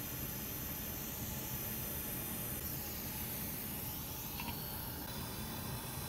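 Hot air rework station blowing steadily, a constant airy hiss, while it heats freshly applied UV solder mask to help it cure.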